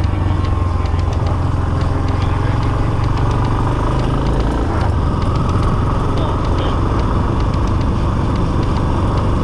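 Motorcycle engine running steadily while riding, under a steady rush of wind and road noise. The engine note shifts slightly about five seconds in.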